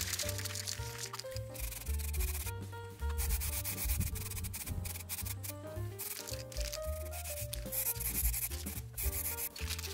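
Aerosol spray-paint can hissing in several bursts of about a second each, over background music.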